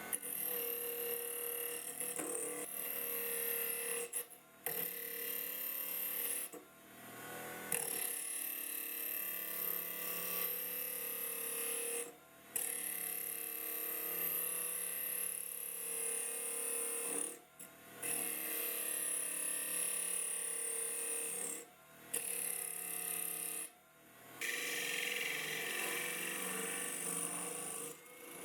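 Homemade wood lathe running with a steady motor whine and a high hiss that drifts in pitch, the sound cutting out briefly about six times.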